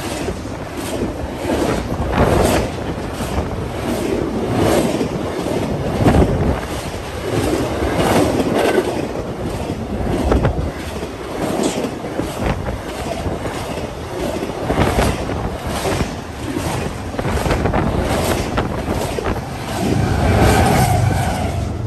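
Double-stack intermodal freight train rolling past close by: steel wheels clicking over the rail joints again and again, with wind buffeting the microphone. The sound swells and deepens near the end as a mid-train locomotive draws near.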